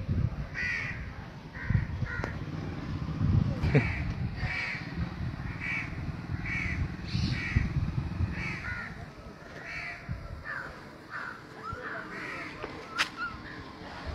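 Crows cawing: a steady run of short, harsh calls, roughly one a second, over a low rumbling background.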